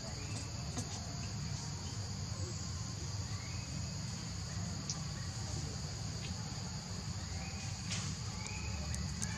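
Steady high-pitched insect chorus from the forest over a low, steady rumble, with a few short, faint chirps.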